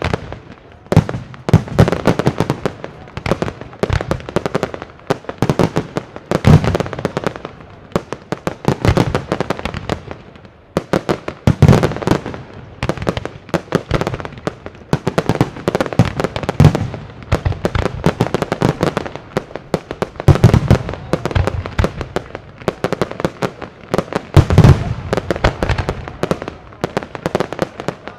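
Fireworks display: continuous rapid crackling and popping from ground-level fountains and comets, with a heavier bang about every four to five seconds.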